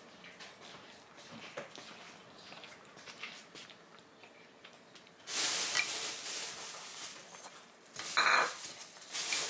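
A cat eating from a bowl of kibble mixed with wet food: small chewing and bowl clicks, then louder scraping and rustling about five seconds in and again briefly near the end.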